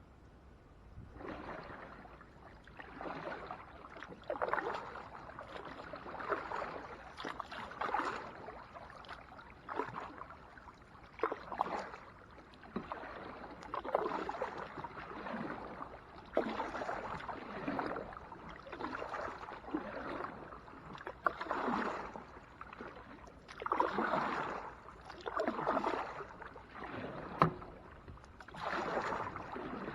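Kayak paddle strokes in the water, a splashing swish about every two seconds, with one sharp knock near the end.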